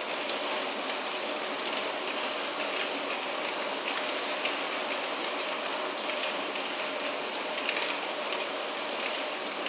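Dense, steady patter of many small plastic balls bouncing and clattering down the grooved metal steps of a running escalator.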